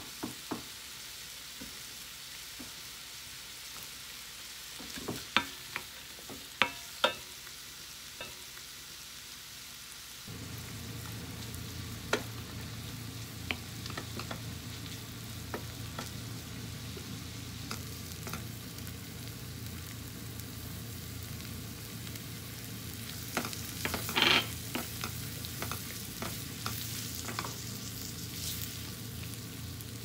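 Chicken breast, onion and mushrooms sizzling in a frying pan while a wooden spoon stirs them, with sharp knocks of the spoon against the pan, several between about five and seven seconds in and a louder clatter near the end. About ten seconds in, a low steady hum joins the sizzle.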